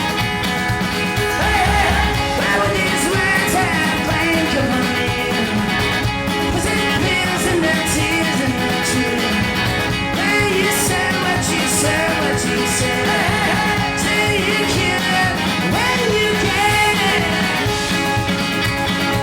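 Rock band playing live: a lead voice singing over strummed guitars and a steady beat.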